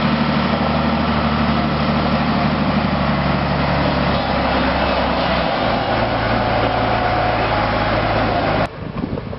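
Mattsson 261S motor grader's Scania diesel engine running steadily, its note changing about halfway through. The sound cuts off abruptly near the end.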